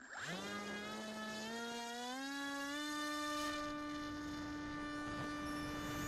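RC model plane's electric motor whining as the throttle is opened: its pitch climbs in steps over the first few seconds, then holds steady at cruise. Heard from the plane's onboard camera.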